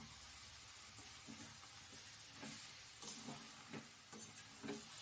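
Cabbage and catfish-head ghonto sizzling softly in a stainless steel kadai while a spatula stirs and scrapes through it, a short scrape about twice a second over a steady hiss.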